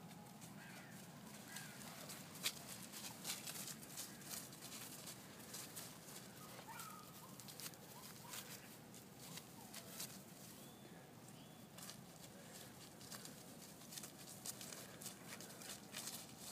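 Dry fallen leaves crackling and rustling faintly as puppies walk and sniff through them, in many short crackles, with a few faint bird chirps.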